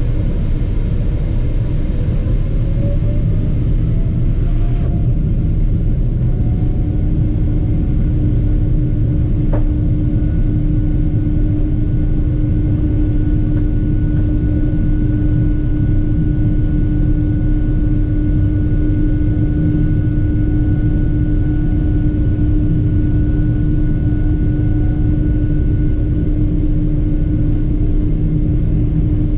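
Boeing 777-300ER's GE90-115B turbofan heard from inside the cabin at the window over the wing, under a heavy low rumble. Its whine climbs in pitch over the first few seconds as the engine spools up, then holds steady, with a single click about ten seconds in.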